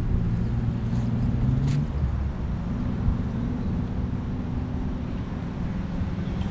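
Car engines running on the road: a steady low hum whose pitch shifts about two seconds in as vehicles idle and pass.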